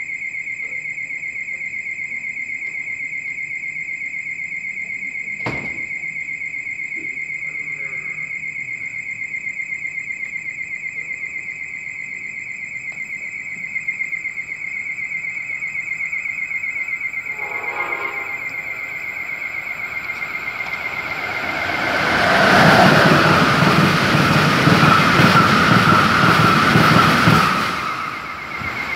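Amtrak Northeast Regional train hauled by a Siemens ACS-64 electric locomotive passing through the station at speed: a rush of wheel-on-rail and air noise builds up over a couple of seconds, stays loud for about five seconds, then falls away as the train clears. Under it runs a steady, pulsing insect trill.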